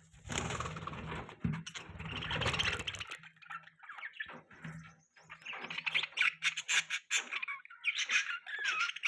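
Budgerigars chirping, short quick chirps that grow denser and busier over the last few seconds. A low rumbling noise runs under the first three seconds.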